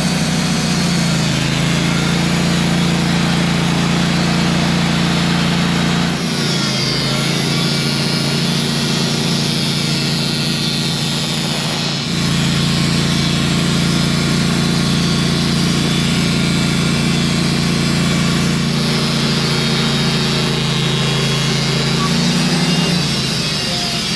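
Wood-Mizer portable band sawmill running at speed as its band blade saws lumber from a log, a steady engine hum that dips briefly about six and twelve seconds in and falls away near the end.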